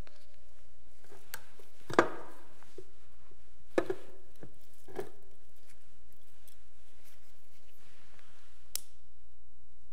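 A few sharp clicks and knocks a second or more apart as a candle is lit with a long-nosed lighter, the loudest knock about two seconds in and a last sharp lighter click near the end. A faint steady hum lies under it all.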